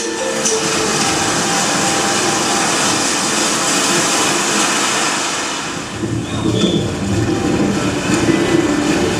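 A steady rushing noise in a sound-design soundtrack, heaviest in the hiss. About six seconds in it thins into a lower, grainier rumble.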